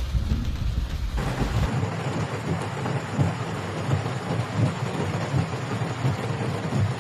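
Heavy rainstorm noise: a loud, steady rushing hiss with a deep rumble underneath. The sound changes abruptly about a second and a half in, as if a different clip starts.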